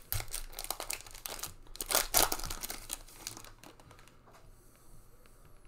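Foil wrapper of a Panini Prizm soccer card pack being torn open and crinkled by hand. A dense crackle with a louder rip about two seconds in, then it dies down to a few faint rustles.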